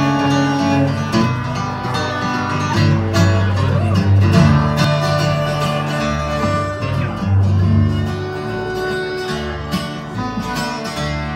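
Live bluegrass band playing an instrumental intro: fiddle, resonator guitar (dobro), flat-top acoustic guitar and upright bass, with held notes over a walking bass line.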